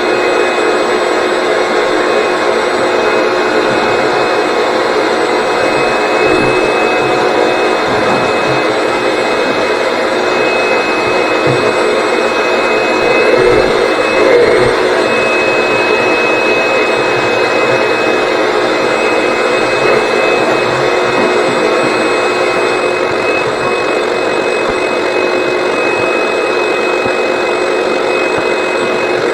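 Vacuum running steadily with a thin high whine, drawing built-up lint out of a badly clogged dryer vent duct. It swells briefly about halfway through.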